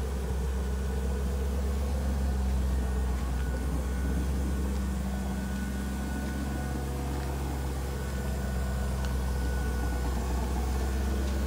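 Lexus 3UZ-FE 4.3-litre V8 idling steadily.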